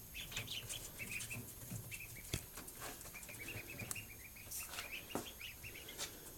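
A group of day-old Pekin and Rouen ducklings peeping, many short high peeps overlapping, faint, with a few soft taps in between.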